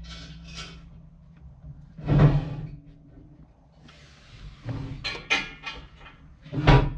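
Steel hitch attachment clanking and knocking as it is fitted onto skid steer fork tines. There is one knock about two seconds in, a quick run of knocks around five seconds, and the loudest clank near the end.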